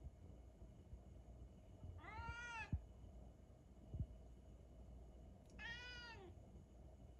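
A domestic cat meowing twice, about three and a half seconds apart, each meow rising and then falling in pitch, with two soft thumps between them.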